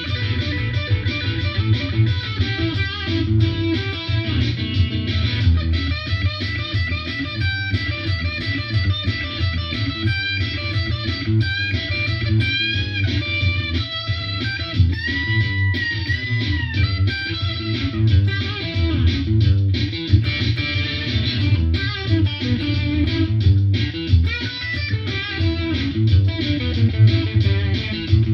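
Black Squier Stratocaster electric guitar playing single-note blues lead lines over a steady low bass, with a held, bent note about halfway through.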